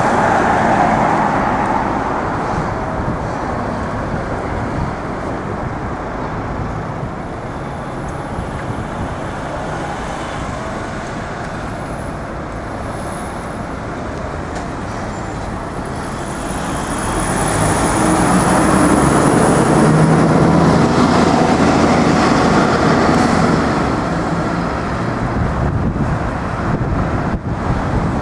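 City-centre road traffic: engines and tyres of passing cars and buses, with no siren. It grows louder for several seconds a little past halfway as a vehicle passes close by.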